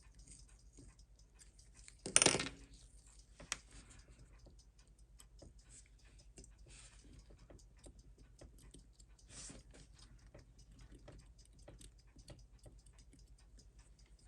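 Small, sharp metal ticks and clicks of watchmaker's tools working on a watch movement, about two to four a second, with a louder clatter about two seconds in.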